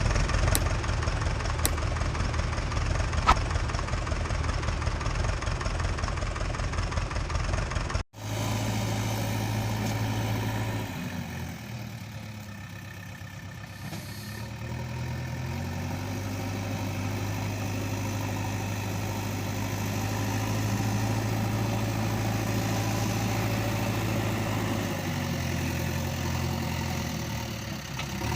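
Engine running steadily at idle. There is an abrupt cut about eight seconds in; a few seconds later the engine's pitch sags and then climbs back.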